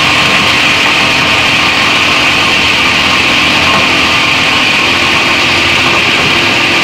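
Heavy-duty plastic scrap grinder running, a loud, steady whir with a dense, irregular rattle underneath.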